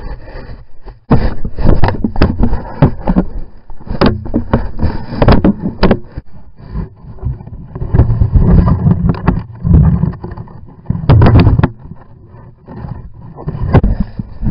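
A large furry animal handling a trail camera at close range: loud, irregular scraping, rubbing and knocking on the camera housing, with fur brushing over the microphone. There are brief quieter lulls in between.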